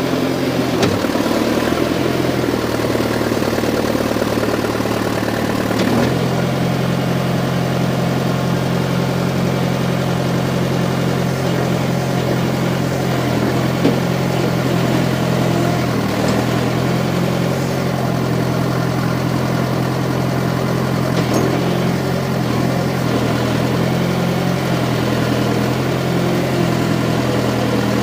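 John Deere 410 loader backhoe's engine running steadily at idle, its note stepping up slightly about six seconds in.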